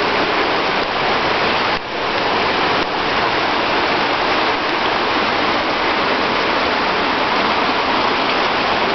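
Steady hiss of rain falling on standing floodwater, mixed with the rush of running floodwater. It drops briefly about two seconds in.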